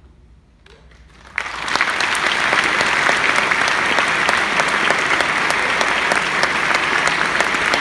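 A brief hush, then an audience breaks into applause about a second and a half in, with dense steady clapping that carries on.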